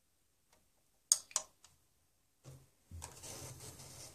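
Two sharp clicks about a second in, the power button of a Dell OptiPlex 745 USFF desktop being pressed, then about two seconds later its fans spin up and run with a steady whir as the repaired motherboard powers on.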